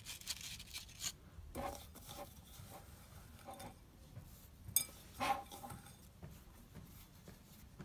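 Hands scraping and pressing crumbly bath bomb mixture in a glass bowl, the powder rustling under the fingers, with a sharp click against the glass almost five seconds in.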